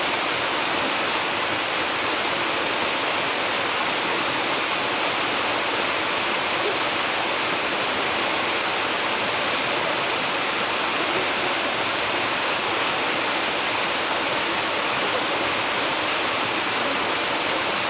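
Steady, unbroken rush of water from a large waterfall.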